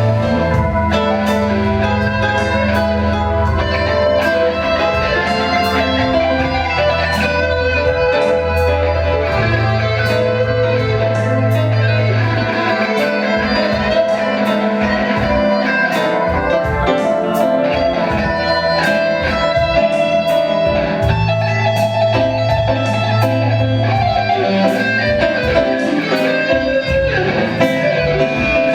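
A live band playing an instrumental passage with no singing: guitar lines over keyboard chords and long-held low bass notes.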